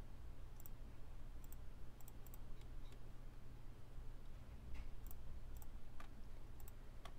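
Faint computer mouse clicks, about eight of them at uneven intervals, over a steady low hum.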